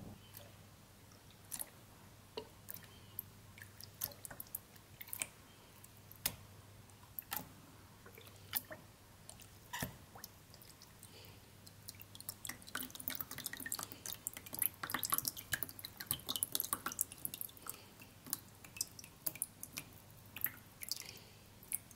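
Water dripping from a papermaking screen frame lifted out of a tub of egg-carton pulp slurry. Scattered drips at first, thickening into many quick drips about halfway through, then thinning out again near the end.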